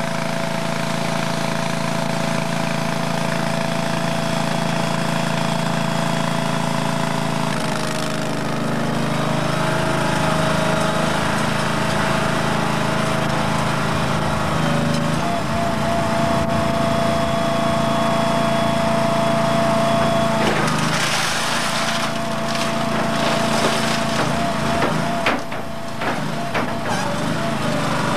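Small engine of a home-built skid steer loader running steadily with a thin whine over it. The pitch shifts several times as the machine works, and there are some clanks and knocks in the last third.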